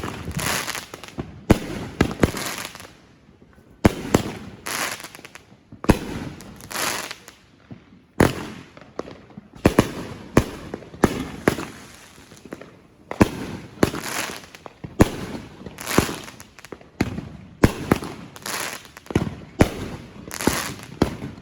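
Fireworks going off in a rapid series: a sharp bang every second or two, each followed by a hissing, crackling tail that fades away.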